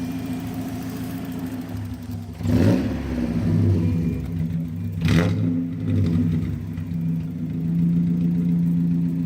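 Mazda Miata four-cylinder engine running while Seafoam cleaner is drawn in through a vacuum line, revved in two brief surges about 2.5 and 5 seconds in, then held at a raised speed of about 2,000 rpm.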